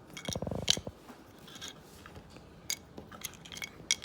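Small toy dollhouse pieces being handled: a brief rattling scrape of rapid clicks in the first second, then scattered light clicks and taps.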